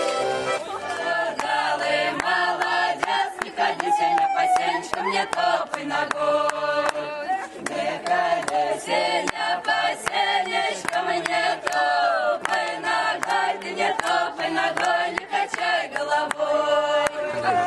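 A Russian folk ensemble singing a folk song unaccompanied, several voices together in long held notes, with sharp hand claps keeping time.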